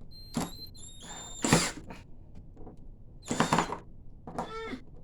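A drill driving an old wood screw under load, its motor whining in a short run and dropping slightly in pitch. Two loud, harsh bursts follow, about a second and a half and three and a half seconds in, and a short strained vocal sound comes near the end, typical of someone bearing down on a stubborn screw.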